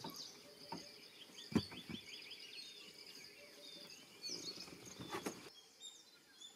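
Small birds chirping and twittering against faint woodland insect ambience, with a quick run of short chirps around the middle and one sharp knock about a second and a half in. The background changes abruptly about five and a half seconds in.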